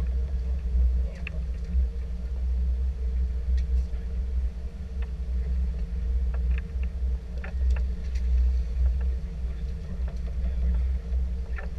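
Boat engine running steadily: a low rumble with a steady hum over it, mixed with uneven low wind buffeting on the microphone. A few faint light clicks.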